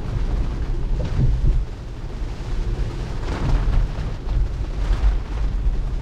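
Steady low rumble of tyre and road noise inside a Tesla's cabin on a wet road in rain, with brief louder swishes about three and a half and five seconds in.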